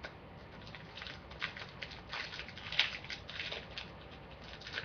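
Plastic wrapper of a scorpion lollipop crinkling in the hands as it is worked open, in irregular crackles.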